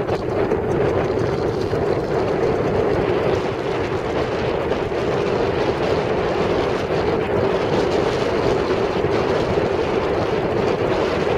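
Wind rushing over a bike-mounted camera's microphone while riding through a dust storm: a loud, steady noise with no let-up.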